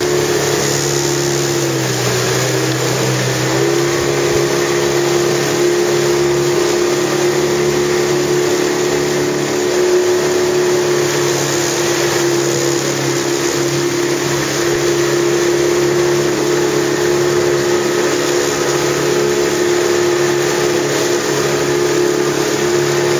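Motorboat engine running steadily at cruising speed, with a brief dip in pitch about two seconds in.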